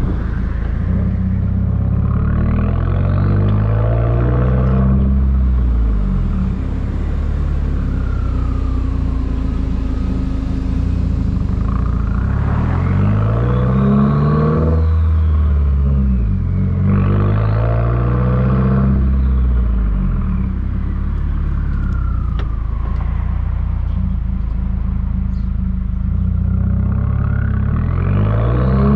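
Subaru WRX turbocharged flat-four heard at the tailpipes through an ETS cat-back exhaust while driving. The engine note climbs under acceleration and drops back about four times, and a high whine falls away after the pulls.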